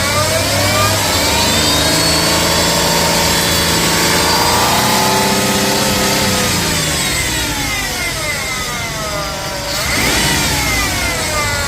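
2005 Dodge Caravan engine running and being revved, with a pitched noise from the engine bay that rises with engine speed over the first few seconds, falls back by about ten seconds in and rises again near the end. The owner traces it to the belt drive (alternator, water pump, idler, tensioner, AC or power steering), since with the belt off there is no bad noise.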